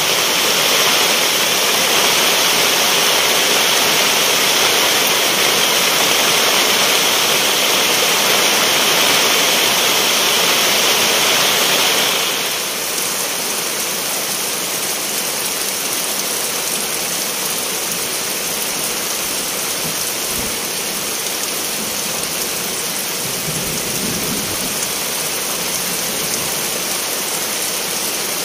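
Steady rain falling in a dense, even hiss. About twelve seconds in it turns slightly quieter and duller.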